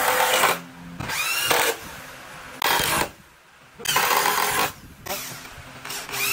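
Power drill/driver running screws into a wooden bed-frame rail in several short bursts, about five. The motor whirs up and back down in pitch with each burst, with short pauses between screws.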